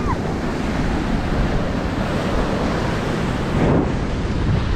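Ocean surf washing in over the sand, a steady rush that swells briefly about three and a half seconds in, with wind buffeting the microphone.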